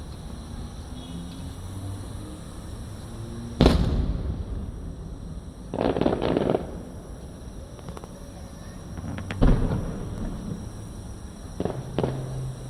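Aerial fireworks shells bursting at a distance: separate sharp bangs with an echoing tail. The loudest comes a few seconds in, then a short spell of crackling, then more bangs, two of them close together near the end.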